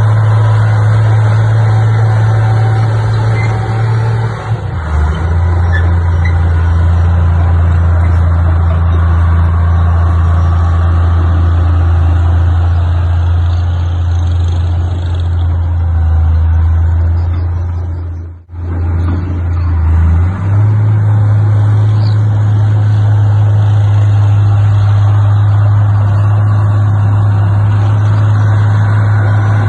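Heavy diesel engine of earthmoving machinery running steadily under load. Its low note drops about five seconds in, and it cuts out briefly near two-thirds of the way through before resuming at a higher pitch.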